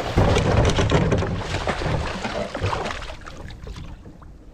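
A carp shot with a bowfishing arrow thrashing and splashing at the water's surface as it is hauled in on the line. The splashing is loudest in the first second or so, then dies down.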